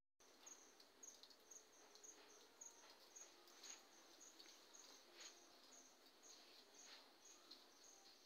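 Near silence, with a faint, high-pitched chirp repeating steadily about twice a second and a few soft ticks.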